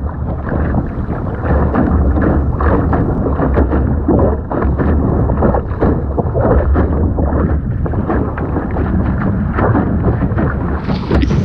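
Strong wind buffeting the microphone while sailing: a steady low rumble with irregular gusty crackle.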